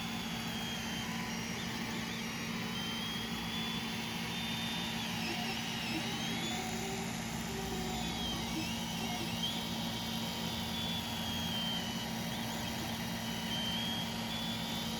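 Ender 3 3D printer printing a first layer: its stepper motors whine at a high pitch that rises and falls with each move, over the steady hum of its cooling fans.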